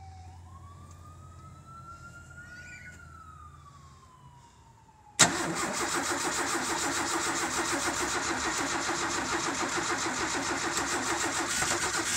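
A faint siren rises and falls over a low hum. About five seconds in, the starter suddenly begins cranking the two-years-dormant 300 cubic-inch straight-six of a 1983 Ford F-150, turning it over steadily with an even beat.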